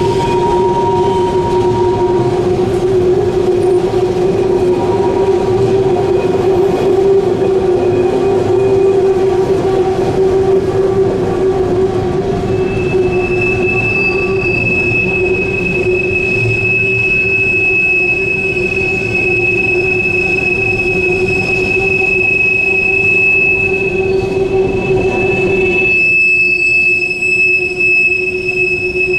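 Empty coal hopper cars rolling past on a curve, their wheels squealing steadily against the rail over a rumble. A second, higher-pitched squeal joins a little before halfway and holds. The rumble thins near the end while the squeals go on.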